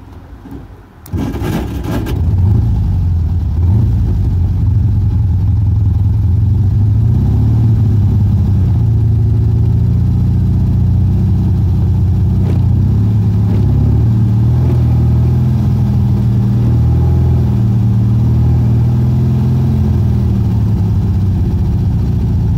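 Volkswagen Fusca (Beetle) air-cooled flat-four engine starting about a second in, then running steadily at idle, heard from inside the car.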